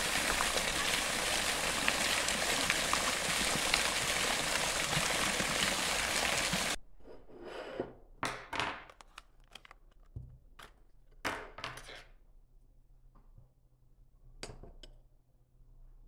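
Fountain jets splashing into a shallow pool, a steady rush of water that cuts off abruptly about seven seconds in. After that, scattered light clicks and taps as a mooncake's plastic tray is handled and the cake is set on a ceramic plate on a table.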